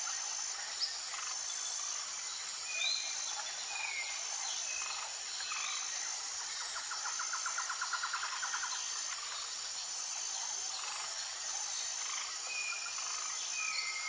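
Outdoor nature ambience: insects chirping steadily, with a short high note repeating about once a second and scattered bird calls. A fast trill runs for about two seconds near the middle.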